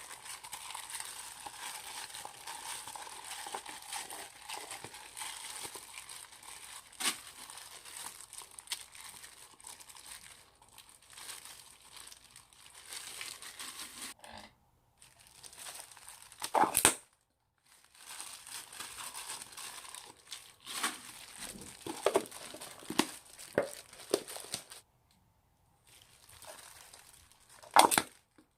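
Old slime being squeezed and stretched, with a steady crinkly crackling and small clicks, broken by a few sharp pops, the loudest about 17 s and 28 s in, and brief pauses.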